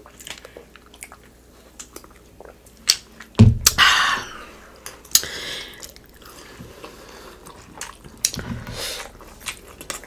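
Close-miked eating sounds: chewing with wet mouth clicks and smacks, and a louder thump and rush of noise about three and a half seconds in.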